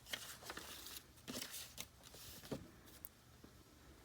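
Faint rustling and crinkling of a glossy calendar page being folded and handled, with a handful of short, soft crackles spread through.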